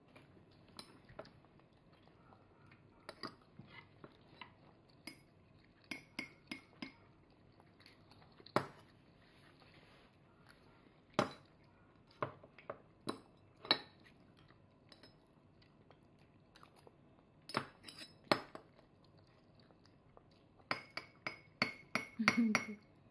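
A toddler's metal spoon clinking and scraping against dishes as he scoops food, in irregular single clinks that come in a quick cluster near the end.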